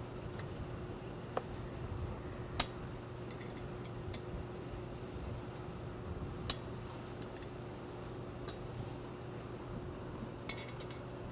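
Allen wrench working a bolt on a steel balance-beam leg bracket: two sharp metallic clinks, about two and a half seconds in and again four seconds later, with a few faint ticks between. A steady low hum runs underneath.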